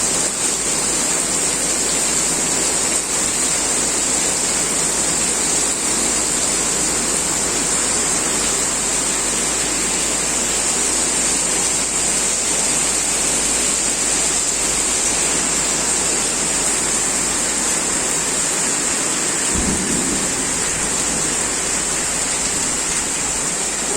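Heavy rain pouring down steadily, a dense even hiss of rain hitting the ground and surfaces.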